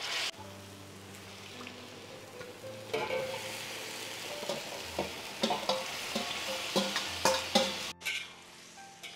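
Curry paste sizzling in a wok. About three seconds in, raw chicken pieces are scraped from a stainless steel bowl into it with a metal spatula: a run of metal-on-metal clinks and knocks, and louder sizzling as the chicken goes into the hot oil.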